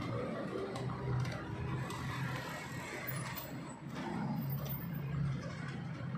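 City street traffic noise: a steady hum of passing vehicles that rises and falls, with a few faint clicks.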